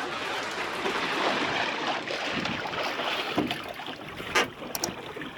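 Wind buffeting the microphone over water splashing and sloshing around a capsized plywood sailing dinghy as it is hauled upright by the daggerboard, with a brief knock about four and a half seconds in.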